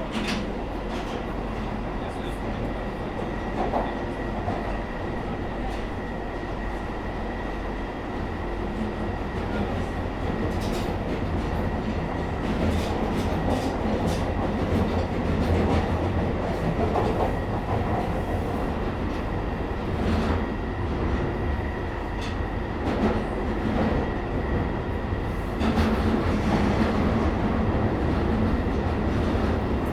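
London Underground Northern line tube train running between stations, heard from inside the carriage: a steady rumble of wheels on rails with scattered clicks and a faint steady whine, growing a little louder about ten seconds in.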